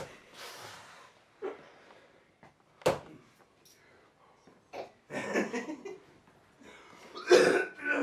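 Short wordless vocal sounds, breaths and laughter, with a sharp click about three seconds in. The loudest burst of voice comes near the end.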